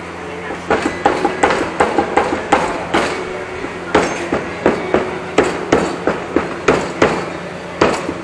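Repeated blows from a rubber mallet on a Honda PCX 150's rear wheel, knocking it loose from its shaft in place of a wheel puller. The sharp knocks start just under a second in and keep a steady pace of about three a second.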